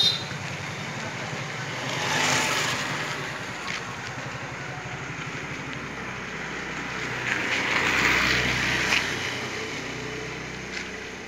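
Street traffic going by: one vehicle passes about two seconds in and another, longer pass swells around eight seconds, over a steady low engine hum.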